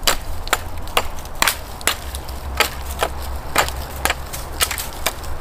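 Winkler hand axe chopping small twigs off a dead pine branch: about a dozen sharp cracks of the blade striking dry wood, roughly two a second at uneven spacing. The axe goes through the twigs easily.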